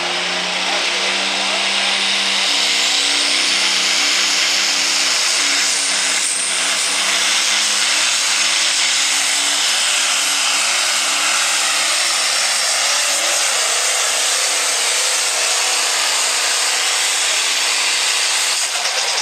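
Light super stock pulling tractor's turbocharged diesel engine running flat out as it drags the weight-transfer sled, a loud, steady, high-pitched scream. It builds over the first couple of seconds as the pull gets going, and the engine note wavers around the middle.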